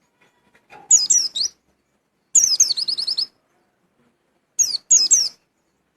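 A pleci (white-eye) singing its 'witwit' song in three short bursts of high, quickly falling chirps. The middle burst ends in a fast run of about six repeated notes.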